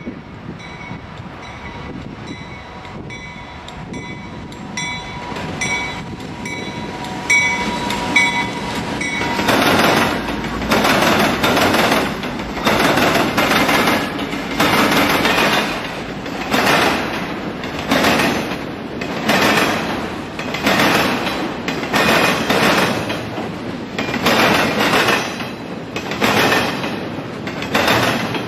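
Intermodal freight train of highway trailers on flatcars passing close by, its rumble building over the first several seconds. Then the wheels clatter over the track in a regular rhythm, roughly one loud clatter a second, as the cars roll past.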